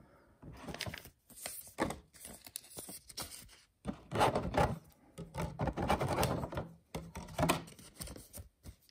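Pokémon trading cards being handled and slid into plastic card sleeves: irregular rustling and scraping of card and plastic, busiest in the middle of the stretch.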